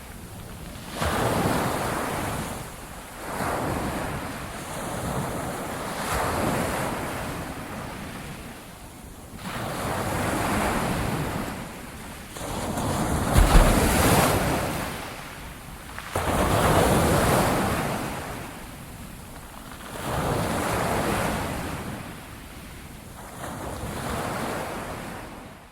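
Ocean waves surging in and washing back, each swell rising and falling every three to four seconds, with a brief low thump about halfway through. The surf fades out at the very end.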